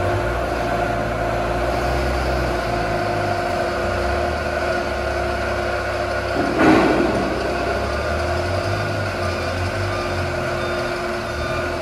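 Combilift multidirectional sideloader forklift running as it carries two long steel tubes, a steady engine hum with a constant tone over a low rumble. There is a brief louder surge about two-thirds of the way through.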